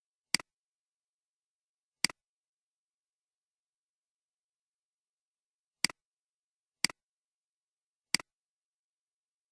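Computer mouse clicks, five single clicks at uneven intervals, each a sharp press followed at once by a softer release tick, with dead silence between them.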